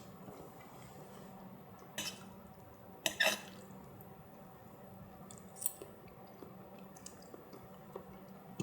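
Quiet kitchen or eating sounds: a few soft clicks and scrapes, the loudest a short double one about three seconds in, over a faint steady hum.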